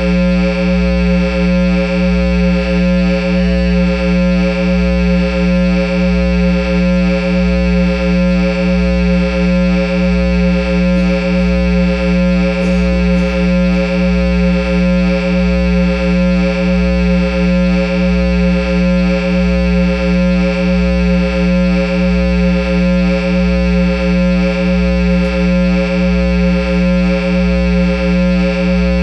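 Guitar amplifier with a speaker cabinet putting out a loud, steady, unchanging drone of several held pitches over a low hum, with a slow, even pulse in its low end.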